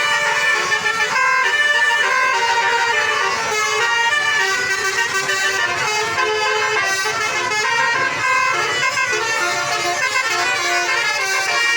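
A bus's basuri 'telolet' melody horn playing a tune: a continuous run of loud horn notes that step from pitch to pitch.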